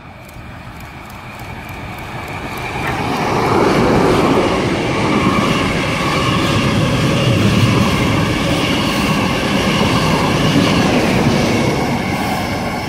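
XPT diesel passenger train passing close at speed: wheel-and-rail noise swells over the first few seconds as it arrives, then stays loud and steady as the carriages run by, easing near the end as the trailing power car passes.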